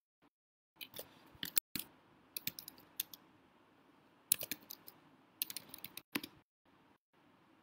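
Typing on a computer keyboard in four short bursts of quick key clicks over a faint background hiss.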